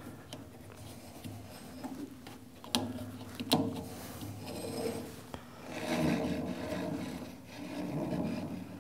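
Hands working a rubber toothed cog belt onto a lathe's motor and spindle pulleys: irregular rubbing and scraping, with two sharp clicks a few seconds in.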